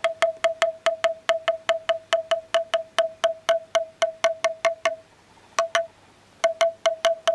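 Rapid light taps of a small cabled sensor hammer on a hanging bamboo tube, about five a second, each giving a short ringing tone of the same pitch: the bamboo's resonance, excited for measurement. A little after five seconds in the taps stop for about a second and a half, with a single tap in the gap, then resume.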